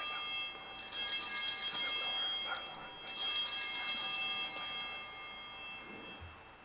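Altar bells (Sanctus bells) ringing at the elevation of the chalice after the consecration: struck twice more, about a second in and about three seconds in, each ring a cluster of high bell tones that fades away.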